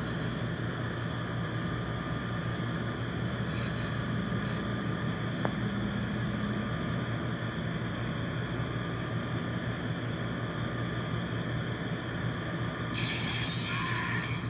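Horror film soundtrack played from a screen: a steady, low, machine-like drone of industrial ambience, then about 13 seconds in a loud hiss that lasts about a second and a half.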